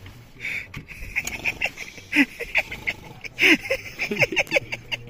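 A quick, irregular run of short honking calls like those of geese or other fowl, each dropping in pitch, the loudest about two and three and a half seconds in.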